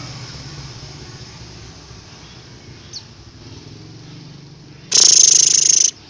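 A steady low engine-like hum, a single brief high chirp about three seconds in, and a loud hiss lasting about a second near the end.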